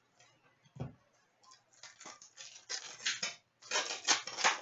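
Trading cards and a card pack wrapper being handled: a light knock about a second in, then a run of short crinkling rustles as the next pack is torn open and its cards are slid out.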